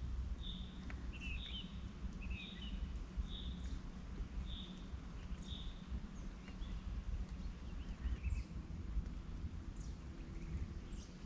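Spring forest birdsong: one bird repeats a short high note about once a second through the first half, with other scattered chirps, over a low rumble.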